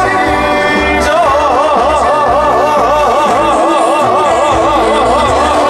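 Live trot band playing the end of a song, with a singer holding one long final note in wide, even vibrato from about a second in.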